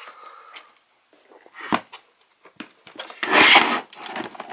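Handling noise from a Snap-on Modus scan tool and its rubber grip pad: faint clicks, a sharp knock about two seconds in, and a louder brief rubbing scrape about three and a half seconds in.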